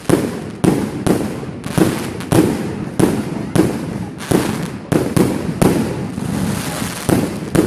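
Aerial fireworks bursting in quick succession, about two loud bangs a second at uneven intervals, each trailing off in an echoing rumble.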